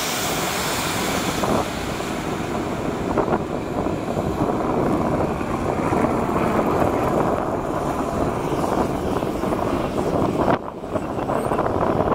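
Dassault Falcon 8X's three turbofan engines running loud in a steady jet rumble as the trijet lands and rolls out down the runway, with a brief dip in level near the end.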